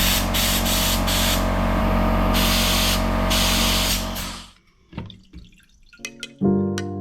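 Loud hissing spray, cut on and off several times over a steady motor hum, as the carburetor's parts are cleaned. It stops about four and a half seconds in, and after a few clicks, music with plucked notes starts near the end.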